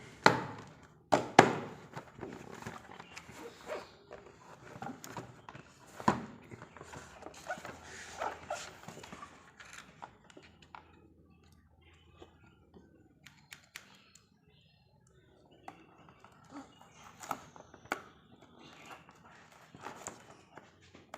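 Packaging being handled: a few sharp knocks in the first seconds and another about six seconds in, then scattered small clicks and rustling, with a quiet stretch about two-thirds of the way through.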